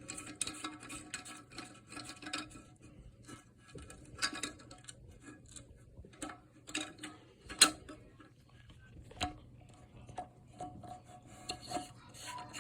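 Small clicks, knocks and rubbing of a toilet's flush-lever nut and plastic tank parts being handled and unscrewed by hand inside the toilet tank, with one sharper click about seven and a half seconds in.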